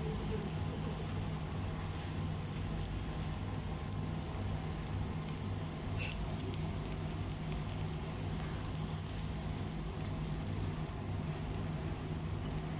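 Batter-coated cauliflower florets frying in hot oil in a pan, a steady crackling sizzle, with one sharp click about six seconds in. A low steady hum runs underneath.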